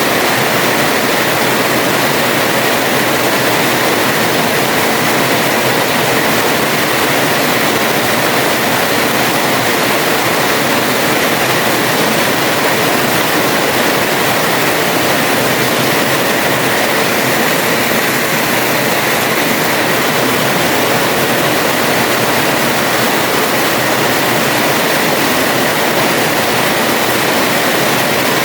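Heavy rain falling steadily on a house terrace, a dense even hiss with no breaks.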